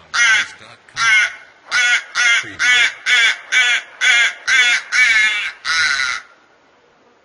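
Crow giving a quick series of about eleven wavering caws, roughly two a second, which stop about six seconds in.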